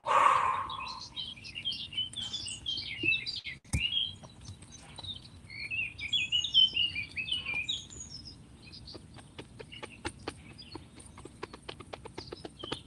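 Small songbirds chirping in runs of quick high notes, after a short loud burst of noise at the very start. In the last few seconds comes a soft, even tapping at about three taps a second: hands tapping on the body as a self-massage.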